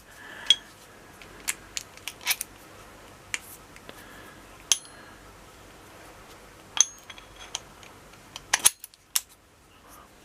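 Sharp metallic clicks and clinks of a Wera Zyklop ratchet, its extension bar and sockets being handled and fitted together: about a dozen irregular clicks, some ringing briefly, the loudest near the start and a quick cluster near the end.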